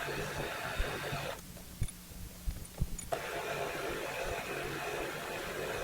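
Milling machine spindle running with a steady hum while a drill bit cuts into metal. The cutting noise stops about a second and a half in and starts again about three seconds in.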